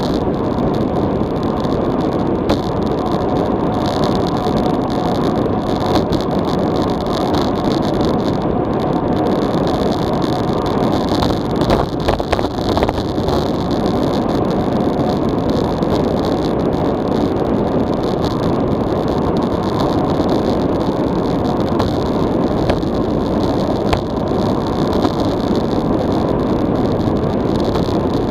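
Steady rush of wind buffeting an action camera's microphone on a road bicycle descending at about 50–60 km/h, with a brief knocking about twelve seconds in.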